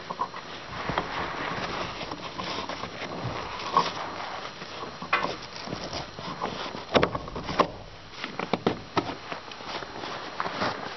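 Chain and hook clinking and knocking in irregular bursts as a gloved hand works a trailer tie-down, with a couple of sharper knocks about seven seconds in.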